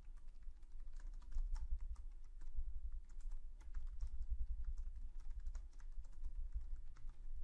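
Typing on a computer keyboard: a quick, uneven run of keystroke clicks, over a steady low hum.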